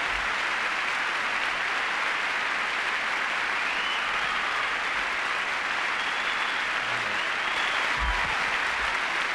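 Large audience applauding steadily, without letup.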